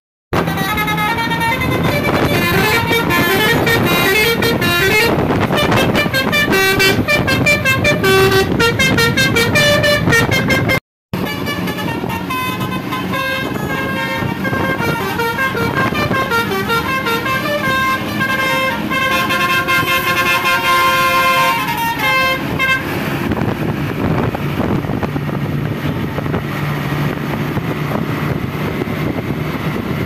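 Indonesian bus 'telolet' multi-tone horn playing fast, stepping melodies in two long runs separated by a brief cut. In the last quarter only vehicle and road noise remains.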